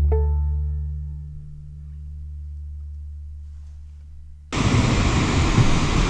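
Background music: a last low note holds and slowly fades. About four and a half seconds in it cuts off sharply to a steady rushing background noise.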